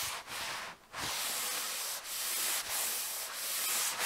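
A cloth pad rubbing back and forth over the finished red oak top of a bookshelf, applying water-based polyurethane. It makes a steady hiss in strokes about every half second, with a short break just before one second in.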